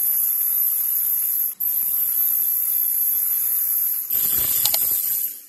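Steady static-like hiss with a thin, high, unchanging whine, breaking off for an instant about one and a half seconds in. Near the end come a couple of short metallic clinks that ring.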